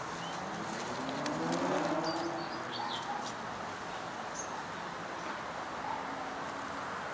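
Outdoor garden ambience with birds calling: a few short high chirps, and a low pitched sound that rises over the first couple of seconds.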